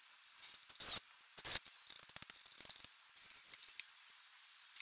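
Quick-release bar clamps being released and slid off a wooden part: two brief rasping slides about a second in, then a run of quick clicks.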